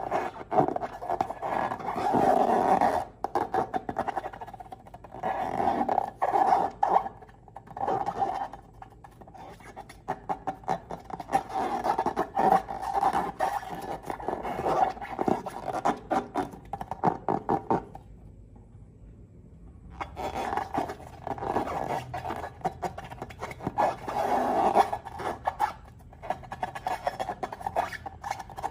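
Slime being squished and worked by hand, making dense sticky clicking and crackling that pauses briefly about two-thirds of the way through.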